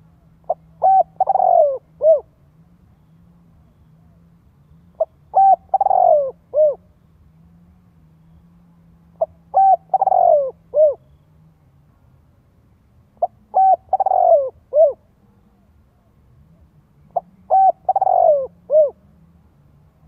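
Spotted dove (cu gáy) cooing its song: five similar phrases about every four seconds. Each phrase is a short opening note, two quick notes, a longer falling coo and a short closing note.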